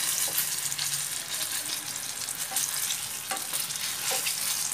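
Khatai-stuffed green chillies deep-frying in hot oil, a steady sizzling crackle. Now and then a steel spoon knocks against the pan as the chillies are turned.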